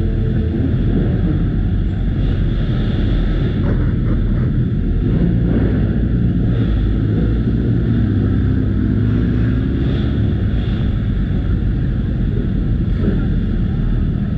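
Motorcycle engine running under way, its pitch rising and falling with the throttle, over steady rumble and wind noise on the microphone.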